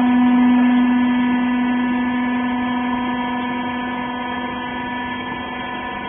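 Hydraulic used-clothes baler's electric motor and pump running with a steady, loud hum, easing off slightly as the press cycle continues.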